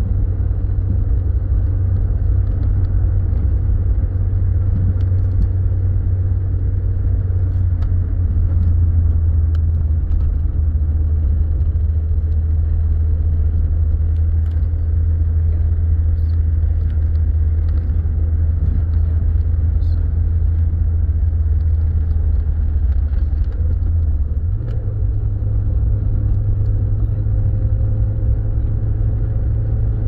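Steady low drone of a car's engine and road noise heard from inside the cabin while driving. About 24 seconds in, the low hum shifts a little higher.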